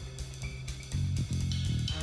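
Recorded music with bass, guitar and drums played back through a soundbar speaker whose drivers have been rewired in parallel, for a sound test. The drums drop out for about the first second, then come back in.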